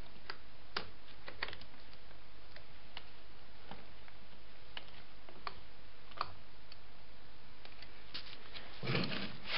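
Scattered light clicks and taps as battery leads and cable clips are handled, irregular and spread out, over a steady low hum.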